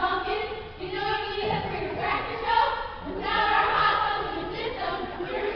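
A group of students chanting a cheer together in short, loud phrases, their voices echoing in a gymnasium.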